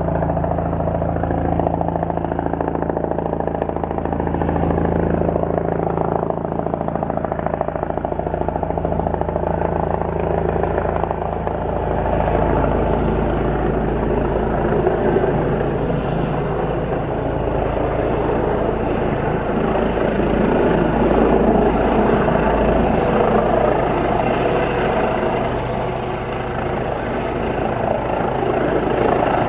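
Medical helicopter running steadily as it approaches to land, its rotor and engine making a continuous loud sound that builds a little toward the later part.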